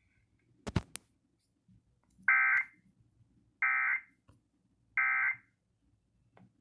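Emergency Alert System end-of-message signal: three short, identical bursts of digital data tones (the SAME "NNNN" code), about a second and a third apart, marking the close of the alert. Two sharp clicks come just under a second in.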